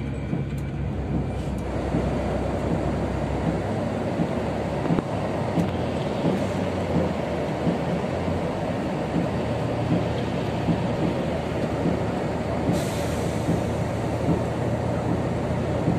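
Steady engine hum and road rumble heard from inside an airport apron bus driving across the tarmac, with a short hiss near the end.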